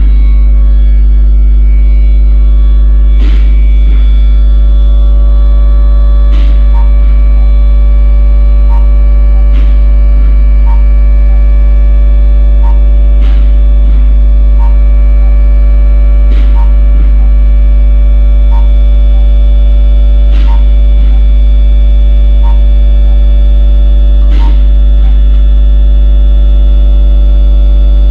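Loud, steady electrical mains hum, a deep drone with a ladder of higher overtones, with faint clicks every few seconds.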